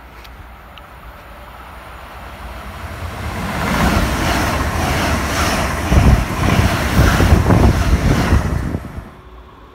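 Deutsche Bahn ICE high-speed train passing close by at speed: a rushing, rumbling noise that builds from about two seconds in, stays loud for some five seconds, and drops away near the end as the train clears.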